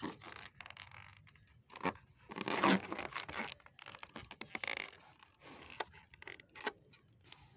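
Latex balloons being handled and knotted by hand: a run of irregular rubbing, crackling noises from the rubber, loudest about two to three seconds in.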